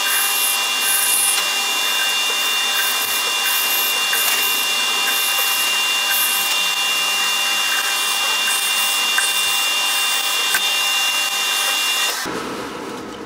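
Metal lathe running with a steady high whine as something held by hand rubs against the spinning threaded screw of a pipe vise, a continuous rasping rub. The sound drops away about twelve seconds in as the lathe stops.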